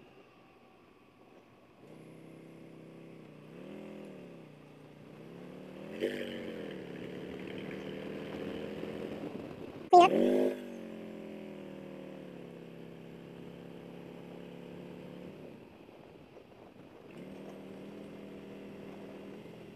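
Harley-Davidson Road King Special's Milwaukee-Eight 114 V-twin, on Vance & Hines slip-on mufflers, pulling through mountain curves: revs rising twice, a sudden loud burst about ten seconds in, then a long, slowly falling drone as the bike slows.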